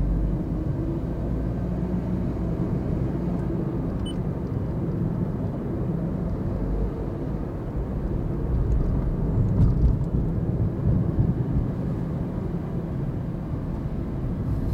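Car cabin noise while driving on a city street: a steady low rumble of engine and tyres on the road, heard from inside the car, swelling briefly about two-thirds of the way through.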